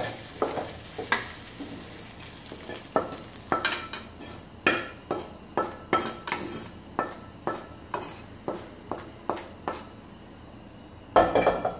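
Spatula scraping and knocking against a steel kadai as scrambled egg is stirred, then scraped out onto a steel plate in a run of sharp taps about every half second. Frying sizzle is heard early on and fades, and a louder clatter comes near the end.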